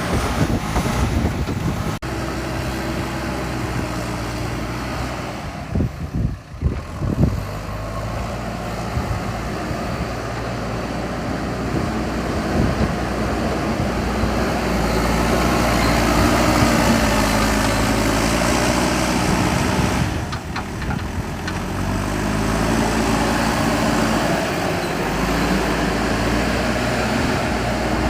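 JCB 3DX backhoe loader's diesel engine running under hydraulic load while digging, its pitch rising and falling as the operator works the controls. A few brief bumps or knocks about six to seven seconds in.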